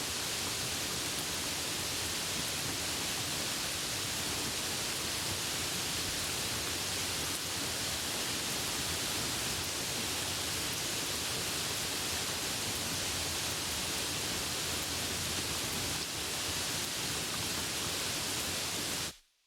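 Steady rain falling, an even hiss with no separate drops standing out, which cuts off suddenly near the end.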